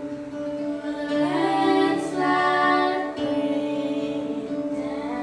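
Music: a voice singing long held notes over acoustic guitar, loudest about halfway through.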